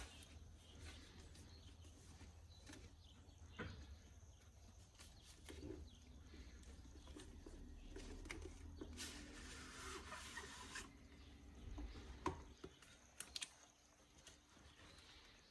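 Faint handling of a phone's packaging: scattered light clicks and taps, with a rustle of cardboard or plastic lasting about two seconds past the middle.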